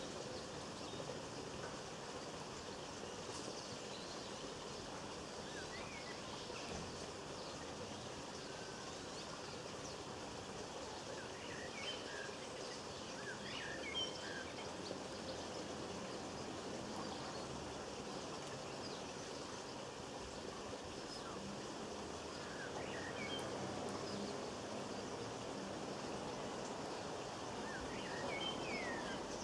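Small garden birds giving short chirps now and then over a steady outdoor background hiss.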